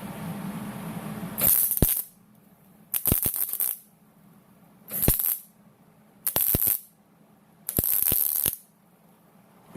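Five short rattling shakes, each under a second long, with near-silence between them.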